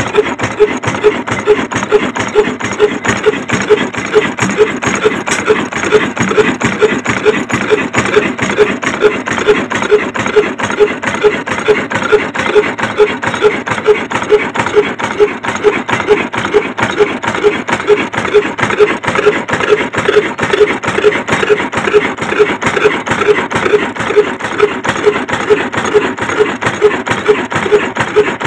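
Old stationary 'black engine' (slow-running horizontal diesel with heavy flywheels, built by Mughal & Sons) running steadily. It gives an even beat of a couple of strokes a second, with a metallic clatter from its valve gear and lubricator.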